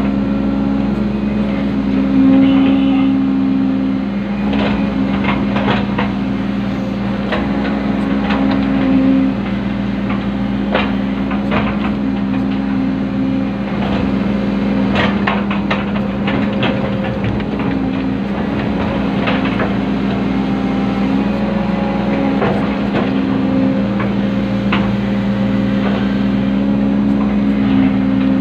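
Komatsu PC120 hydraulic excavator's diesel engine running steadily under working load, heard from inside the cab, its note rising and falling as the hydraulics take load. Scattered clanks and knocks come through as the bucket digs and scrapes the soil.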